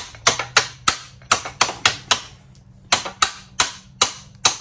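Hammer tapping a long bolt out of a 1994 Kawasaki KX80 dirt bike's frame: a quick series of sharp metal-on-metal strikes, about three a second, with a short pause about halfway through.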